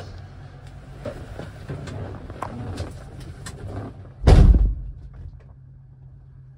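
Light rustling and clicks of movement in a truck cab, then about four seconds in a single heavy thud as the cab door of the 2016 Hino 268A shuts. After it the outside noise drops away, leaving a low steady hum.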